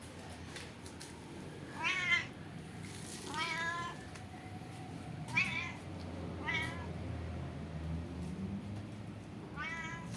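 Domestic cat meowing five times, short calls spaced one to three seconds apart.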